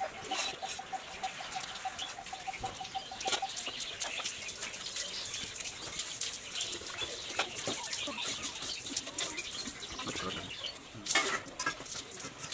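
Hands peeling mandarin oranges: a steady run of small crackles and tearing clicks as peel and pith are pulled off the segments, with a louder burst about eleven seconds in.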